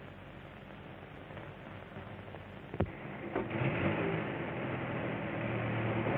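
Train running and coming closer, its rumble and rattle growing louder from about halfway through, after a sharp click; heard over the hiss of an old film soundtrack.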